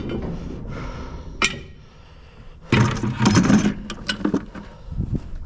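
Metal clinks and knocks, with a louder rattling clatter about three seconds in, as a magnet-fishing magnet is handled and put into a bucket.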